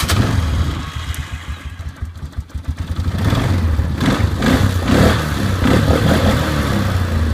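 Polaris Sportsman 500 HO ATV's single-cylinder four-stroke engine running just after being started, with a low, even pulsing. It grows louder from about three seconds in.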